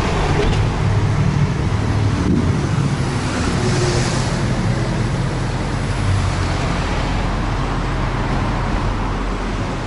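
Steady road traffic on a busy city street: engines running with a low rumble as a double-decker bus and a motorbike pass close by, with a brief hiss about four seconds in.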